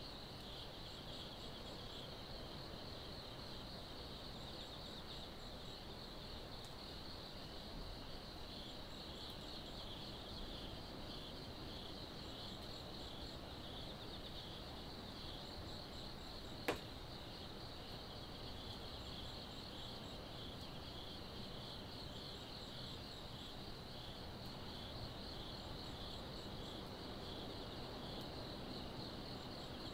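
Insects chirping in a faint, steady, finely pulsing high trill over a low even background noise, with a single sharp click a little past the middle.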